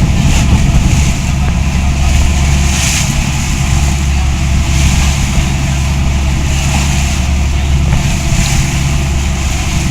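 Boat engine running steadily at constant speed, with a rushing hiss over it that swells every second or two.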